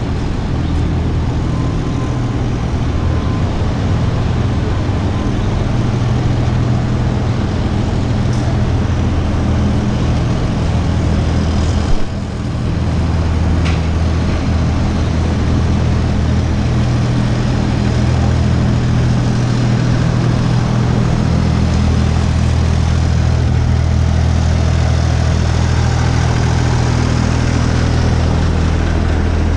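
Midtown street traffic noise: a steady low engine hum with a constant wash of road noise. There is one sharp knock about twelve seconds in.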